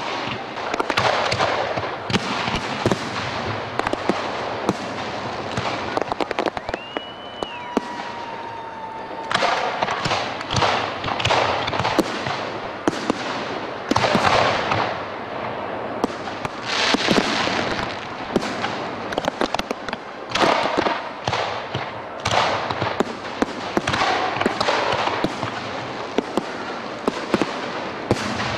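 Aerial fireworks crackling and popping densely, with louder bursts of crackle every second or two. A brief whistle comes about seven seconds in.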